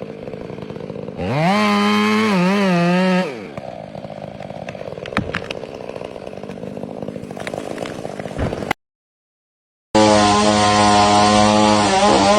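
Chainsaw revving up to full throttle for about two seconds with a wavering pitch, then dropping to a quieter, rougher sound with a few clicks. It cuts off, and after a second of silence it is running again at full throttle.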